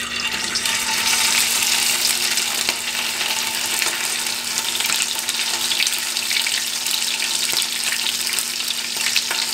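Salmon fillet sizzling skin side down in a very hot oiled pan, the fry starting suddenly as the fish goes in and then holding steady with small crackles. The high heat is searing and crisping the skin.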